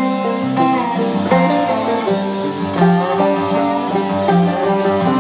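Background music: an instrumental tune on plucked string instruments, with notes changing steadily throughout.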